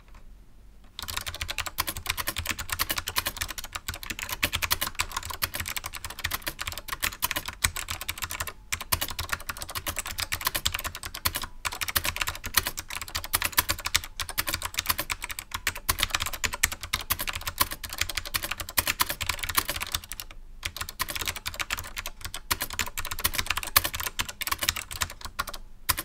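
Steady typing on a Monterey K110 (SIIG MiniTouch) keyboard with SMK second-generation clicky "Monterey" switches: a fast stream of sharp key clicks, with a little spring ping. It starts about a second in and breaks off briefly twice.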